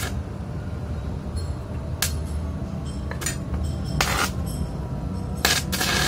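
Stick (MMA) arc welder tack-welding steel: several short bursts of crackling arc, the longest near the end, over a steady low hum.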